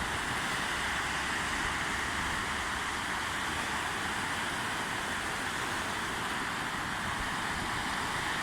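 Steady rushing of sea surf, with wind on the microphone.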